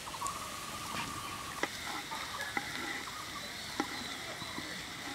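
Sliced onions sizzling in oil in a frying pan, stirred with a wooden spatula that knocks against the pan three times. A bird or chicken calls in the background during the first couple of seconds.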